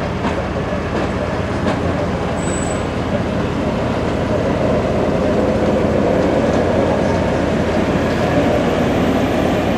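CSX maintenance-of-way machines rolling over a road crossing on the rails, a steady engine and wheel rumble that grows louder about halfway in as the machines pass.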